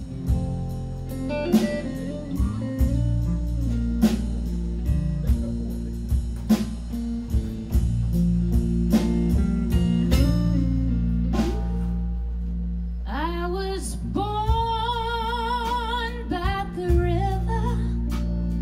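Live blues band: electric guitar playing a slow lead line over bass and drums. About two-thirds through, a woman begins singing with a wide vibrato.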